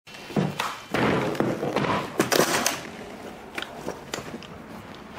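A hard guitar case being set down on a counter: thumps and scraping for the first few seconds, then a few light clicks.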